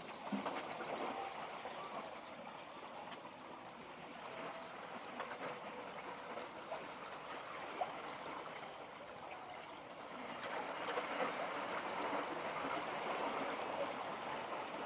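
Seawater lapping and trickling among rocks: a steady wash of small splashes and gurgles that grows somewhat louder about ten seconds in.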